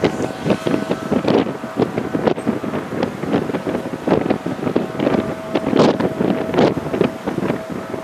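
Strong, gusty snowstorm wind buffeting the microphone in uneven surges, with a faint steady tone running underneath.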